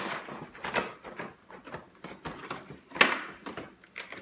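Packaging being handled: irregular rustles, crackles and light knocks of cardboard and plastic, with the sharpest knock about three seconds in.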